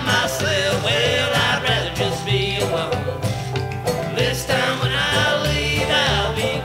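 Bluegrass band playing a song, from the band's demo recording.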